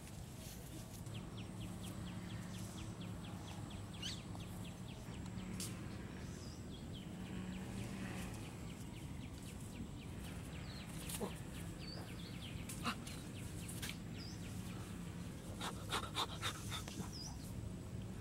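Rural outdoor ambience: a low steady rumble with a few faint bird chirps and a short run of rapid ticking early on, and several sharp light clicks near the end.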